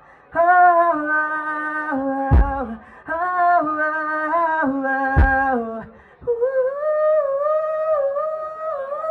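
A singer sings long, drawn-out notes with no clear words into a microphone over a PA system. The notes step and slide between pitches in three phrases, and a deep thump cuts in twice, about two and a half and five seconds in.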